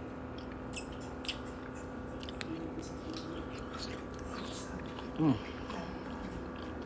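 A person chewing food close to the microphone, with small wet mouth clicks, and a brief falling hum of the voice about five seconds in.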